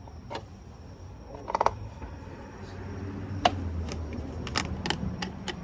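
Clicks, knocks and light rattles of a plastic motor-oil jug and makeshift funnel being handled at an engine's oil filler neck, made ready for pouring in the new oil.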